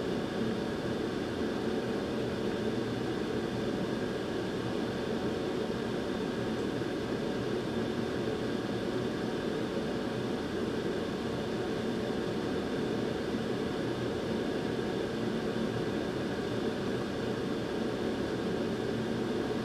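Steady blowing hiss of a hot air rework station, running evenly while it reflows solder balls onto a GPU memory chip during reballing.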